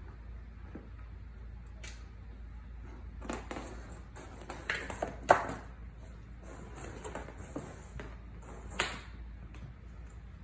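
Scattered light taps and knocks of Scottish Fold kittens scampering and pouncing on a hard floor among their toys. The sharpest knock comes about five seconds in.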